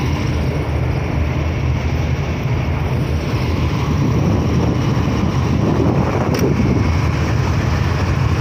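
Pakistan Railways GEU40 diesel-electric locomotive idling at the platform: a steady low rumble that grows a little louder about halfway through. A brief click comes near the end.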